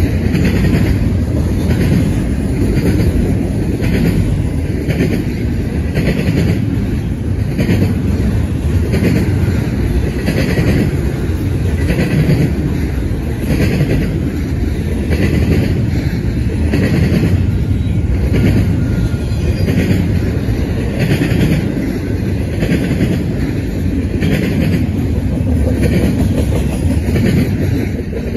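Double-stack container well cars of a freight train rolling past, the wheels clattering in a steady rhythm about once a second. The last car goes by at the very end and the sound falls away.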